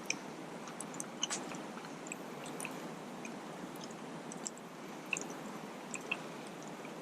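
A man chewing a mouthful of steak, quietly, with faint scattered clicks.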